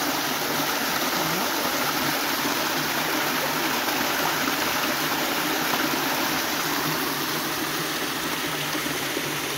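Water rushing and splashing as it drops over a small step in a concrete irrigation channel, a steady, even rushing sound.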